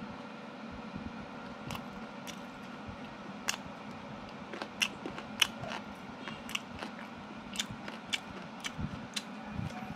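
Close-up eating sounds: someone biting into and chewing a soft, glossy food, with sharp wet mouth clicks and smacks coming a few times a second from about two seconds in, over a low steady background hum.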